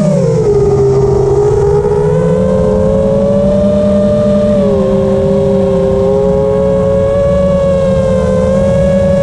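FPV quadcopter's brushless motors and propellers whining, recorded by the camera on board. Several tones run close together; the pitch drops at the start as the throttle eases off, then holds fairly steady with small shifts.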